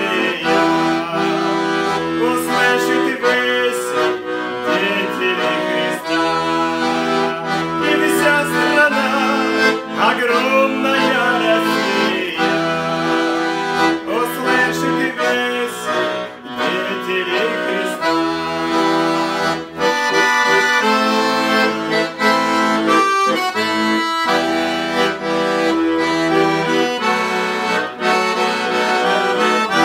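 Weltmeister button accordion playing a tune: a melody over held chords, with low bass notes coming and going.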